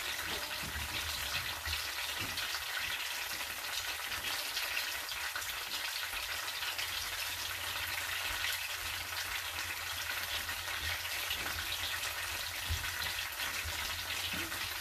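Coconut milk frying in a pan on an electric coil burner, a steady crackling sizzle as it cooks down to be browned into a topping.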